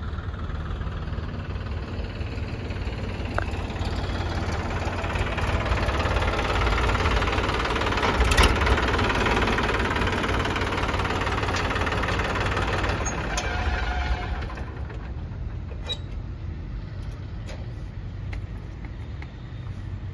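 Massey Ferguson 241 DynaTrack tractor's three-cylinder diesel engine running, growing louder through the middle and then dropping back to a lower, steadier level about fifteen seconds in.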